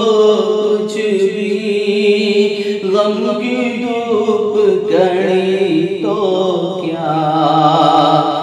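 A man chanting an Urdu naat unaccompanied, drawing out long sung notes that waver and shift in pitch.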